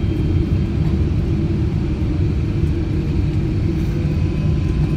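Steady low rumble inside the cabin of a Boeing 777-300ER on its landing approach: its GE90 turbofan engines and the rush of air past the fuselage, with faint steady high tones over it.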